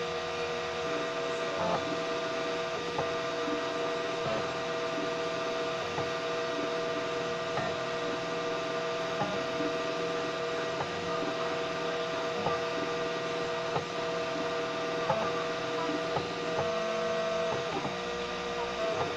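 Homemade 3D printer's stepper motors whining steadily in two held tones while printing slowly, with a faint tick every second or so as the print head changes direction.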